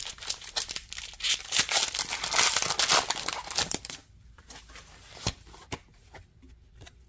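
Pokémon TCG booster pack's foil wrapper being torn open and crinkled for about four seconds, then quieter light clicks and taps as the cards are slid out and handled.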